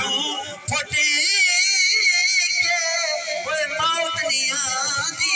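A song: a high singing voice holding long, wavering, ornamented notes with strong vibrato over music, coming in about a second in.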